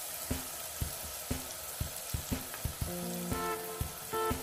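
A vegetable stew sizzling in a pot on a gas burner while a silicone spatula stirs it, with short knocks about twice a second. A few short pitched tones come in about three seconds in.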